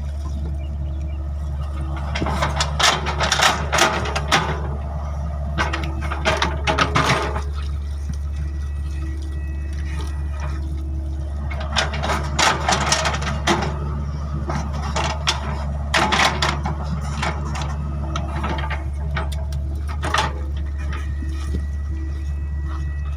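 Excavator diesel engine running with a steady low drone, with five short bursts of clatter from the machine at work.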